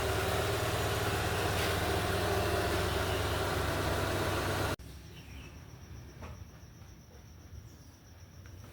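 Renault Mégane II engine idling steadily after a top overhaul; the sound cuts off abruptly about five seconds in, leaving a quiet background with a few faint light clicks.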